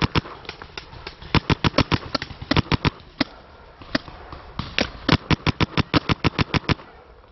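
Paintball markers firing, with rapid strings of sharp pops at about five or six shots a second, in bursts with short gaps between them.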